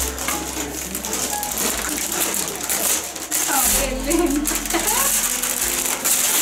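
Gift wrapping paper being pulled and torn off a large box, a dense crackly rustling of paper. A voice is heard briefly in the middle.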